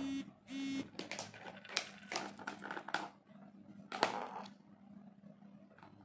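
Tableware and food containers being handled: a run of irregular clicks, clinks and rustles that dies away after about four and a half seconds. Two short, steady tones come at the very start.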